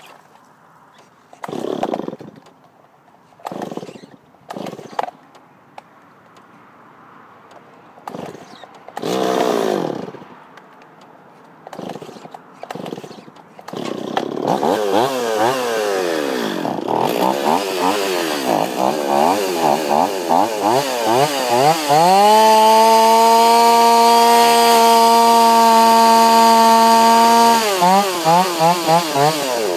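Two-stroke chainsaw: a few short separate bursts of engine noise, then it runs continuously from about halfway through, its pitch rising and falling rapidly as the throttle is blipped. Near the end it is held at a steady high-revving pitch for about five seconds before dropping back to quick blips.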